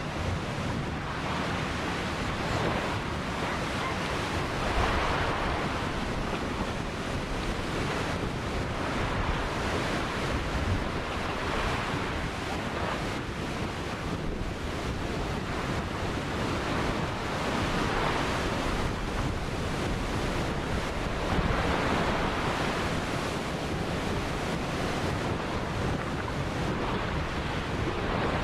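Ocean surf washing onto the shore: a continuous rushing of water that swells and fades as waves break every few seconds, over a low rumble.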